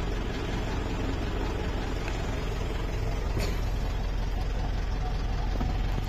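Mitsubishi Strada's diesel engine idling steadily, heard from inside the cab, now running after it would crank but not start; the fault was the immobilizer antenna, which has been unplugged. A single short click about three and a half seconds in.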